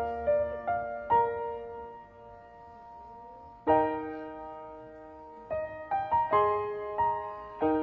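Slow, gentle solo piano background music: single notes and soft chords that ring out and fade, with a pause before a brief run of quicker notes.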